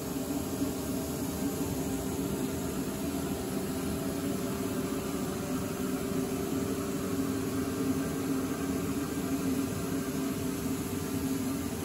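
Goldmann HTS automatic sandblasting cabinet running with its dust filter and blasting switched on: a steady machine hum with a few held tones over an even hiss.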